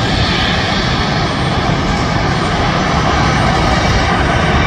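Twin turbofan jet engines of a Boeing 767-300ER airliner running at high power as it rolls along the runway. The noise is steady and grows a little louder in the second half.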